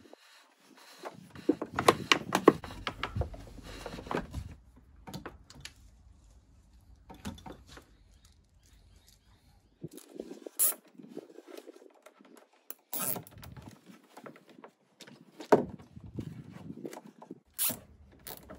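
Irregular handling noises from hands-on wiring work: a busy patch of knocks and rustles over the first few seconds, then scattered sharp clicks and knocks with quiet gaps between.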